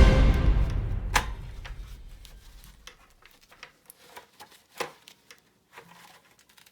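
Background music fading out, then a sparse series of sharp clicks and light knocks, the loudest nearly five seconds in.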